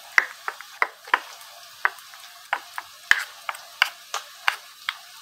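Metal spoon beating yogurt and ground spices in a steel bowl, clinking against the bowl's sides in sharp, irregular taps, about three a second.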